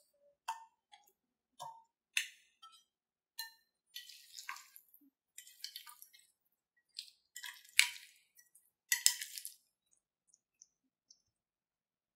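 Raw chicken drumsticks being coated in a thick spice marinade in a glass bowl: intermittent wet squelches and slaps as the pieces are worked through the paste, with light clinks of a metal spoon against the glass.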